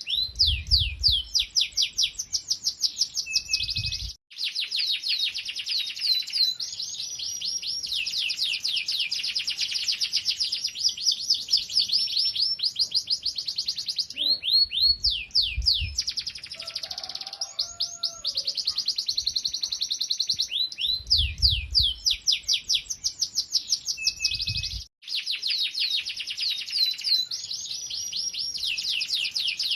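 Domestic canary singing a long, loud song of rapid trills, fast strings of repeated descending chirps running phrase into phrase. The sound cuts out abruptly twice, about four seconds in and near the end, with a low rumble under parts of it.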